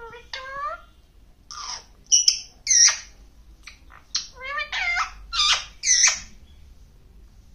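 Rose-ringed (Indian ringneck) parakeet vocalizing: a string of about seven short, high calls that slide in pitch, coming in bursts with short gaps between.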